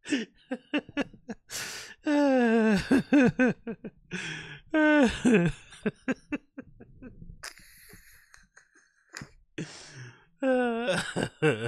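A man laughing hard into a close microphone, without words: fits of high-pitched laughter that fall in pitch, about two seconds in, about five seconds in and again near the end, with breathy gasps between them.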